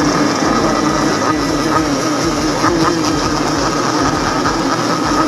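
Many Yamaha RX King two-stroke motorcycles running and being revved together, making a loud, continuous engine din whose pitch wavers as the throttles are worked.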